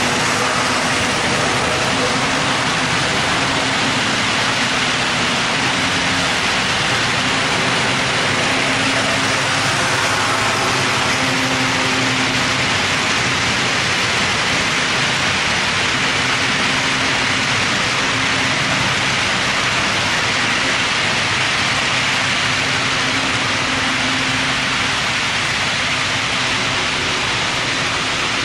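HO-scale model freight train rolling past, a steady whirring rush of wheels on track, with a low hum that swells and fades.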